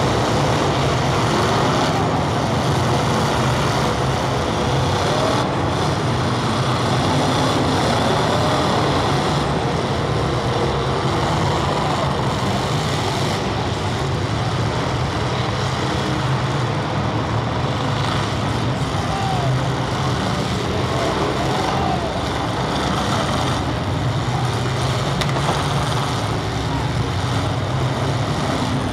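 Many demolition derby cars' engines running at once, a loud, steady, dense din with a low rumble underneath.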